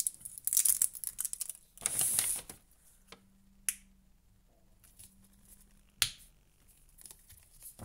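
A plastic flip-top cap on a tube of hand cream being worked open by hand: a quick run of small clicks and crinkling at first, a short hissing scrape about two seconds in, then single sharp clicks, the loudest about six seconds in.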